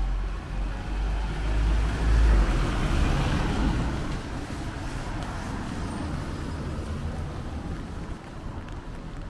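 A motor vehicle passing close on a wet street: its engine rumble and tyre noise swell to a peak about two to three seconds in, then fade into steady traffic noise.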